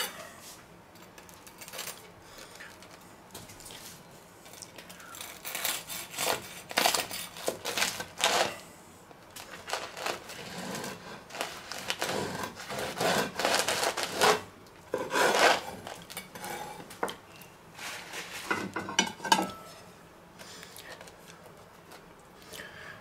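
Serrated bread knife sawing through a crusty stone-oven baguette sandwich on a wooden cutting board, in repeated back-and-forth strokes from about five seconds in until near the end.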